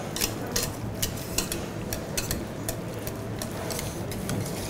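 Wire balloon whisk beating butter into mashed potato in a stainless steel saucepan. The wires tick against the pot two or three times a second, growing fainter in the last second or so.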